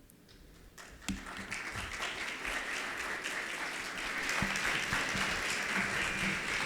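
Audience applauding. It starts about a second in and builds to a steady level.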